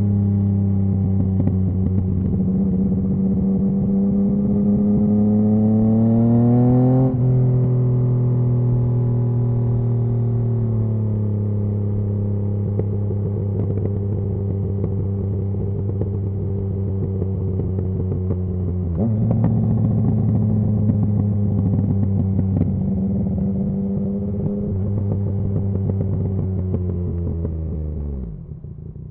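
2019 Yamaha MT-09's 847 cc crossplane inline-triple engine running through a Scorpion Serket full exhaust. The revs climb, then drop abruptly about seven seconds in, step down again a few seconds later, and jump up again past the midpoint. Near the end the revs fall away and the sound dies out.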